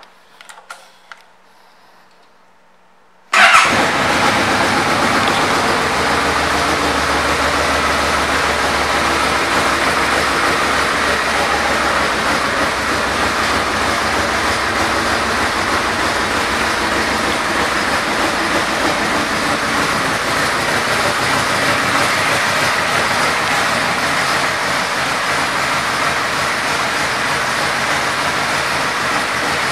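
Yamaha Royal Star Venture's V4 engine starting about three seconds in, catching with a sudden loud burst, then idling steadily.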